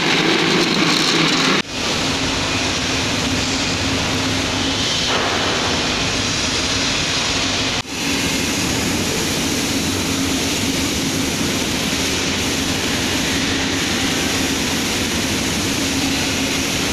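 Steady machinery drone filling a large factory workshop: an even rushing noise with a low hum under it, broken for an instant twice where the shots change.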